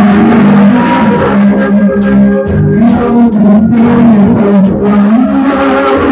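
Loud music with a guitar-like plucked-string part over held, wavering notes.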